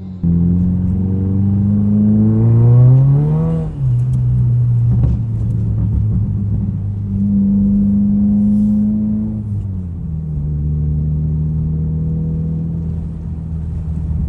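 Straight-piped Subaru WRX (VB) turbocharged 2.4-litre flat-four pulling: the engine note climbs for about three and a half seconds, then drops sharply and holds steady. It steps down to a lower pitch again about two-thirds of the way through.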